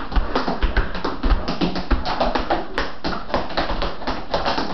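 Tap shoes striking a kitchen tile floor in quick, steady tap steps, several clicks a second, over music with a low beat.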